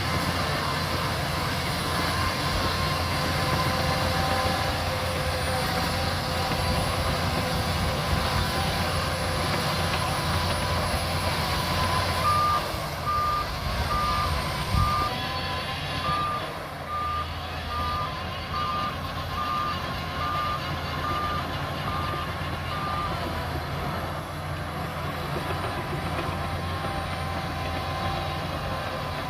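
Shantui DH17C2 bulldozer's diesel engine running steadily under load. About twelve seconds in, a reversing alarm starts beeping at a steady pace, a little over one beep a second, for about ten seconds, then stops.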